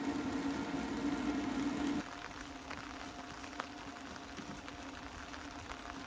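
EcoFlow Glacier portable fridge's ice maker humming steadily while it freezes ice on its prongs. About two seconds in, the sound drops to a quieter steady hum with a few faint scattered ticks.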